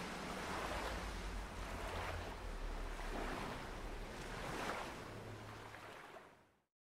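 A noisy ambient wash, like wind or surf, swelling and easing about once a second, then fading out to silence near the end.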